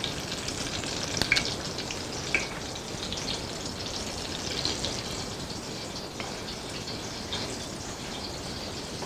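Apple fritters sizzling steadily in hot frying oil, with a few sharper pops and crackles.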